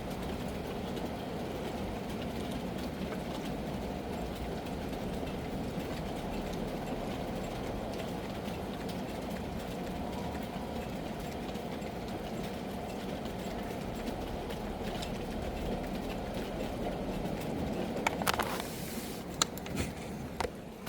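Steady rain, a dense low rushing without pause. Near the end a brief louder swell and a few sharp, separate taps stand out.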